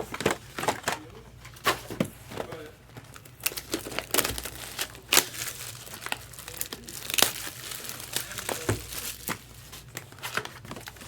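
Foil trading-card pack wrappers crinkling and tearing as packs are opened and handled, a run of irregular sharp crackles.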